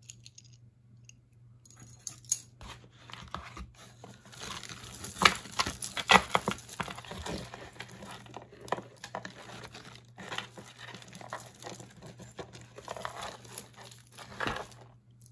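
Hands rummaging through a box of tangled jewelry: irregular crinkling and rustling mixed with sharp clicks of pieces knocking together. It starts about two seconds in and is loudest around five to six seconds in.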